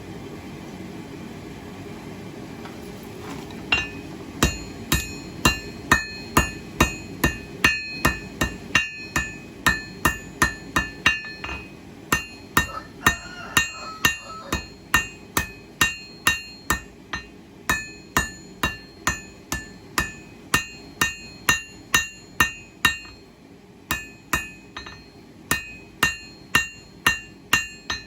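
Hand hammer striking hot 1084 high-carbon steel on an anvil while drawing out a knife point: regular blows about two a second, each with a bright ringing tone, with two short pauses. A steady rushing noise runs alone for the first few seconds before the hammering starts.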